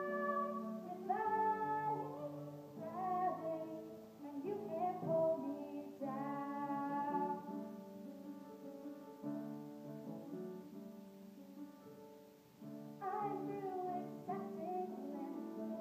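A girl singing a solo over instrumental accompaniment in a live stage performance, sung phrases over held lower notes. The voice drops back for a few seconds past the middle, then returns stronger near the end.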